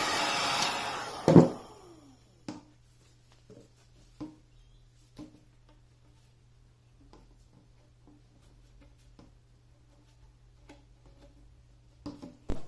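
A steady, rushing power-tool noise dies away with a falling whine in the first two seconds. Next comes one loud knock, then scattered light knocks and clicks as dust-collection pipe fittings are handled, over a low steady hum.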